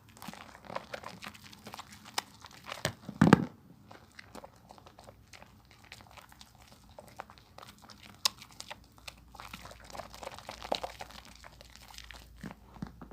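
A bar of soap being lathered in wet hands: irregular sticky crackles and squishing clicks, with one louder squelch about three seconds in.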